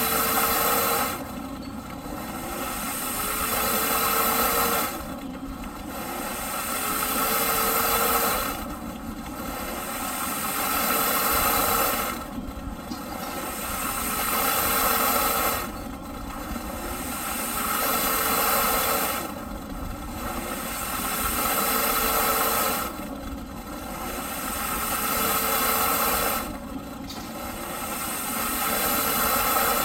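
Eureka PowerSpeed vacuum cleaner motor running over a hiss of rushing air. Its pitch and loudness climb steadily and then drop off sharply, again and again, about every three and a half seconds.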